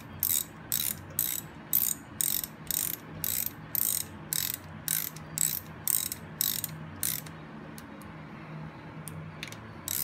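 Hand ratchet clicking in quick back-and-forth strokes, about three a second, as the transmission side cover bolts on a Harley-Davidson touring motorcycle are run down snug before final torquing. About seven seconds in the strokes stop, leaving a few single clicks before the ratcheting picks up again at the end.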